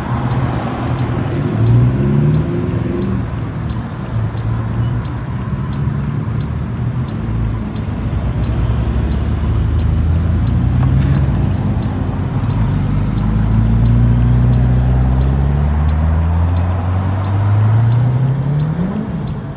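Motor vehicle engine running and accelerating, its pitch climbing steadily over several seconds and rising again just before the end, over a steady hiss. A faint high tick repeats regularly throughout.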